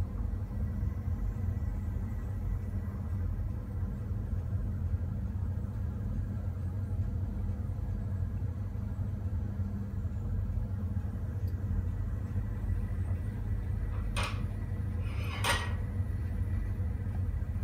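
Ferroli Optima 701 gas combi boiler running with its burner alight: a steady low rumble with a faint hum. Two brief rustles come near the end.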